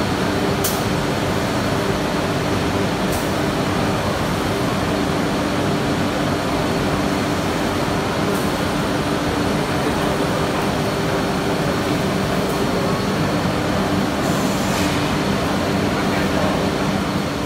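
SOPH MSK2513A CNC nesting router running, a steady mechanical hum with a few short, sharp clicks now and then.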